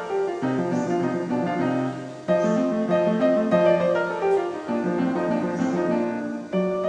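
Background music: a plucked acoustic guitar tune with piano, moving from note to note.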